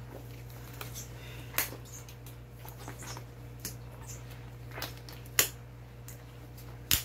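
Gloved hands mixing and squeezing kimchi mixture in a large plastic basin: soft wet squishing and rustling, with a few sharp clicks, the loudest about five seconds in and again near the end.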